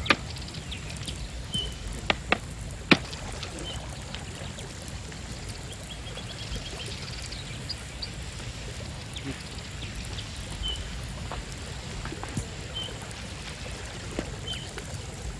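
Natural ambience: short high bird-like chirps come now and then over a steady low rumble. A quick run of chirps comes about six seconds in, and a few sharp clicks fall in the first three seconds.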